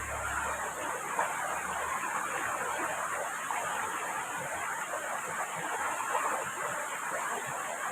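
Heavy rain falling steadily, an unbroken hiss with no pauses; a low rumble fades out about a second in.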